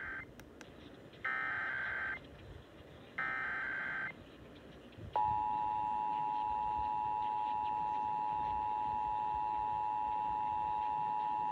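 Emergency Alert System SAME header data bursts broadcast over AM radio: the tail of one harsh digital burst, then two more of about a second each, a second apart. About five seconds in, the steady two-tone EAS attention signal starts and holds.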